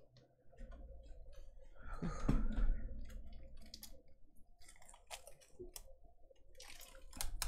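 Plastic dust bag crinkling and crackling as it is handled and worked off a rolled canvas. There is a louder handling bump about two seconds in.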